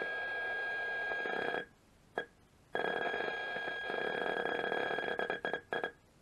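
Nuclear Enterprises PCM5 contamination meter's loudspeaker giving a steady high-pitched beep, the sign of a very high count rate from the smoke detector's americium-241 alpha source at the probe. The beep cuts out about a second and a half in, blips once, comes back for about three seconds and breaks up near the end as the source is moved.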